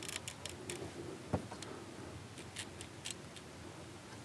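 Faint, scattered light clicks and ticks, with one louder knock about a second and a half in.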